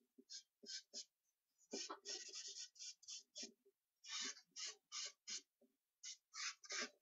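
Charcoal stick scratching across paper in quick hatching and rubbing strokes, a few strokes a second in uneven runs with short pauses.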